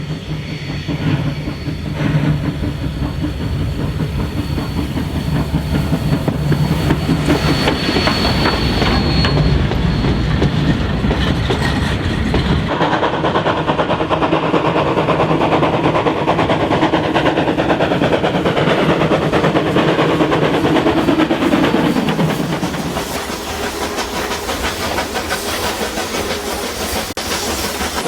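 Heritage train running along the line, its wheels clicking over the rail joints. The sound changes abruptly about halfway through, then eases off a few seconds before the end.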